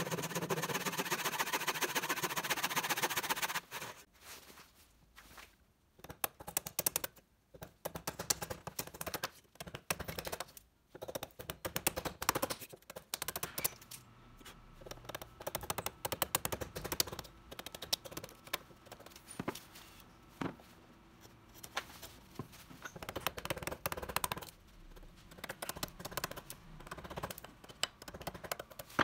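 Wood being worked with hand tools: a steady rasping for the first few seconds, then a long run of sharp, irregular taps and knocks.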